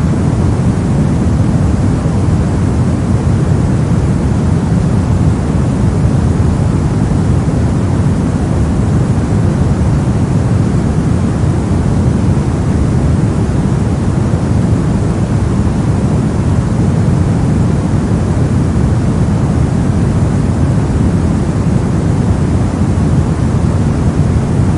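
Brown noise: a steady, even hiss-like noise weighted heavily toward the bass, deep and warm, with the treble much fainter.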